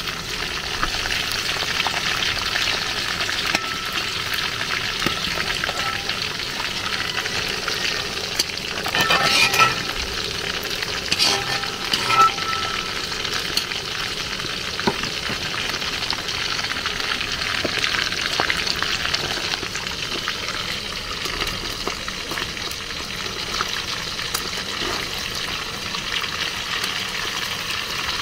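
Fish frying in hot oil in a large aluminium pot: a steady sizzle with fine crackling, briefly louder twice, around nine and twelve seconds in.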